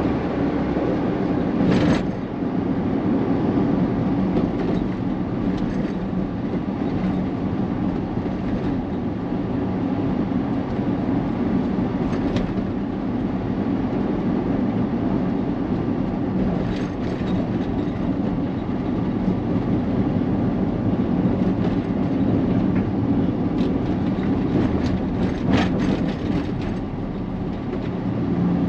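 Steady drone of a vehicle driving along a city road, engine and tyre noise together, with a few short clicks or knocks now and then.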